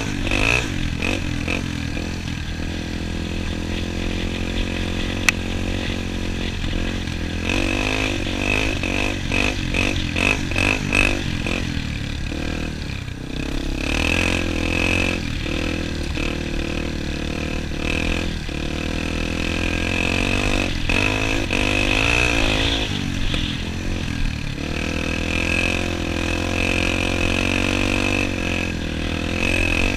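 Dirt bike engines running under way, the nearest one's pitch rising and falling again and again with throttle and gear changes. Wind noise runs beneath, and there is a single sharp click about five seconds in.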